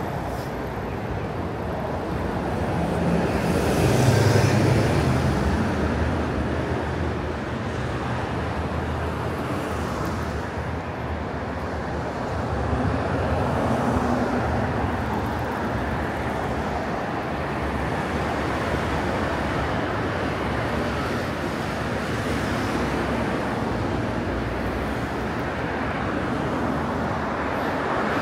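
Road traffic on a busy city street: a steady wash of passing cars and other vehicles, with one vehicle passing louder and deeper about four seconds in.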